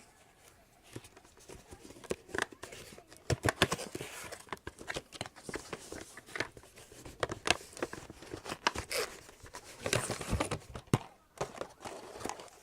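Packaging crinkling and rustling, with many irregular sharp clicks and taps, as an HDMI-to-VGA adapter cable is handled and put back into its packaging.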